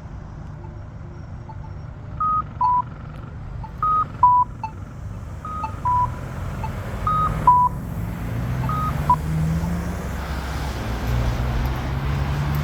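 Faint ticking of a crosswalk locator tone, about once a second, joined by a repeating two-note electronic beep, high then lower, sounding five times about every second and a half. From about eight seconds in, traffic noise rises as a vehicle accelerates.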